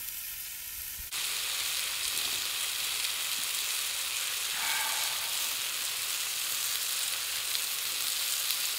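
Sirloin steak, mushrooms and cherry tomatoes sizzling steadily in a frying pan, the sizzle stepping up louder about a second in.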